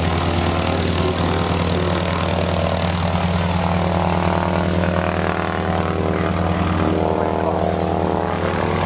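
Radial engine of a T-6 Texan-type single-engine military trainer running steadily on the ground with its propeller turning. It makes a loud, even, low-pitched engine note throughout.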